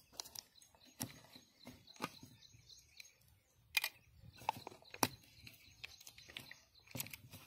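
Scattered clicks and crinkles from a foil-sealed plastic jar being handled: the screw cap coming off and fingers picking at and peeling the foil seal.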